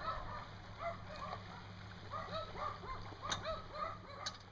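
Short animal calls repeated in quick runs, several a second, over a steady low hum, with a couple of sharp clicks in the second half.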